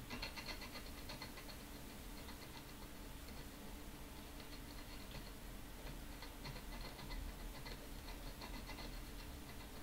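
Faint, light ticking over a steady low hum.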